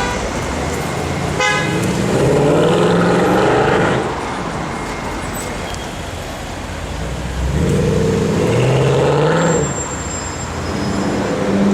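Mercedes-Benz C63 AMG V8 exhaust, revving up with a rising pitch as the car accelerates, twice, with another rise starting near the end. A brief car horn toot sounds about a second and a half in.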